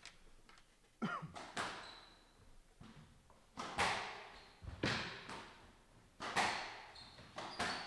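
A squash ball is struck by rackets and hits the court walls during a rally: about six sharp cracks come roughly every second and a quarter, each ringing briefly in the enclosed court.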